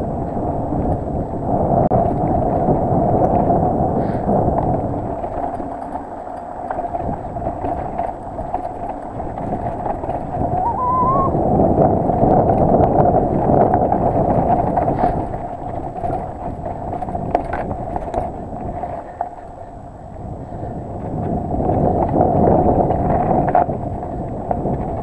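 Mountain bike rolling fast down a dirt singletrack: wind buffeting the microphone over tyre rumble, with a few sharp clacks from the bike over bumps. The noise swells and dips as the speed changes.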